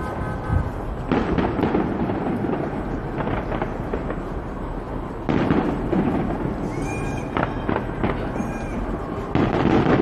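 Fireworks going off overhead: a continuous rumble of booms and crackle, with louder bursts setting in about a second in, about five seconds in and near the end.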